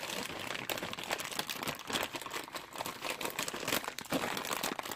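A clear plastic parts bag crinkling as it is handled: a dense, irregular run of crackles.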